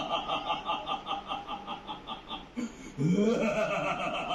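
A woman laughing in quick, even bursts of about five a second, breaking off after about two and a half seconds; about three seconds in a voice rises in pitch before the laughing picks up again.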